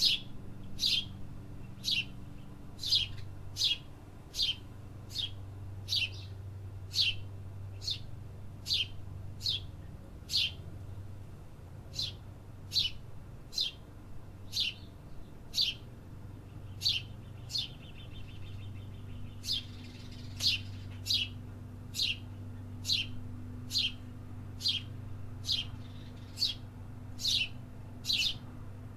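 A bird calling over and over with single sharp chirps, each sliding quickly down in pitch, about one and a half a second. A short, fast buzzy trill comes about two-thirds of the way through.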